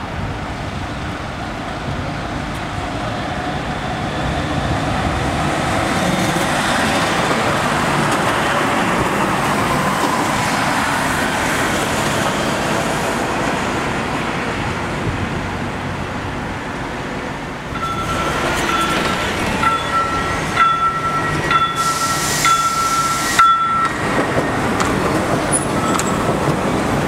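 Pneumatic-tyred guided trams running on a city street: a steady rumble of tyres and motors that swells as a tram approaches, with road traffic. After about 18 seconds a tram passes close by, and a high beeping tone repeats rapidly for about six seconds.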